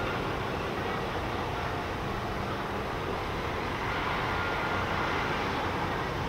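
Steady mechanical rumble and hiss with a low hum, and faint thin whining tones coming and going.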